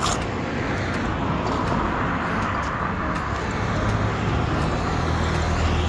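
Road traffic passing on the street: a steady rush of tyres and engines, with a deeper engine hum building through the second half.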